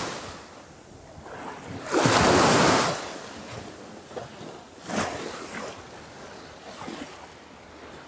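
Small surf washing on the shore with some wind on the microphone; one louder wash rises about two seconds in and lasts about a second, with a shorter one near five seconds.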